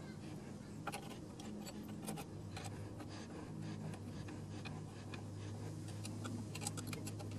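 Small metallic clicks and light scrapes of a hex key turning a bolt as a new stainless steel bushing is fitted into the motorcycle crash bar's clamp, over a low steady hum.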